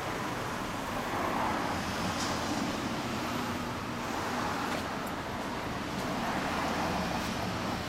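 Steady road traffic noise from a street, with passing vehicles swelling louder about a second in and again near the end.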